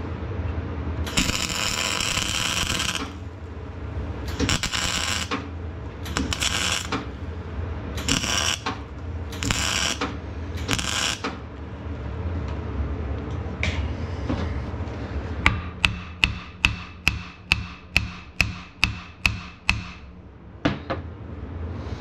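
MIG welder arcing in six bursts of one to two seconds, welding onto a broken stud in a Fiat 640 tractor's exhaust manifold. A few seconds later comes a fast, even run of about a dozen sharp metal hammer taps, about three a second, jarring the welded stud to loosen it in its thread.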